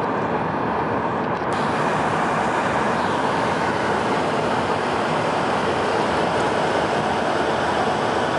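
Steady road noise inside a moving vehicle's cabin.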